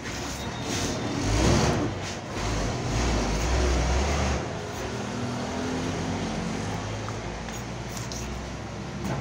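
Low engine rumble of a motor vehicle, swelling over the first few seconds and then settling to a steady drone.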